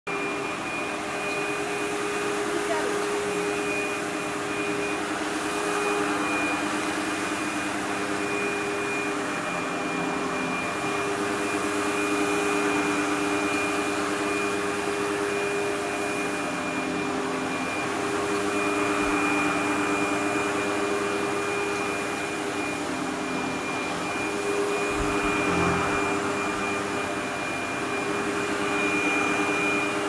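SEBO XP10 upright vacuum cleaner running over a carpet mat, its motor giving a steady high whine over a rushing noise. The sound swells and eases a little every few seconds as the cleaner is pushed back and forth.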